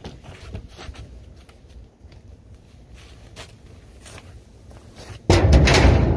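Rustling of a disposable painter's coverall and scuffing steps in shoe covers on asphalt, with faint clicks and rustles. About five seconds in, a sudden loud rush of noise lasts nearly a second as the suited legs pass right by the microphone.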